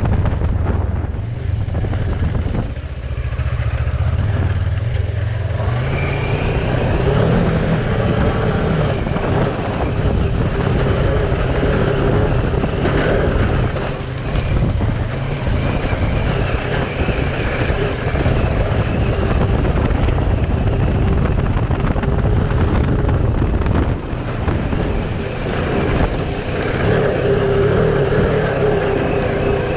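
Kawasaki Versys 650's parallel-twin engine running steadily under throttle while riding, easing off briefly three times.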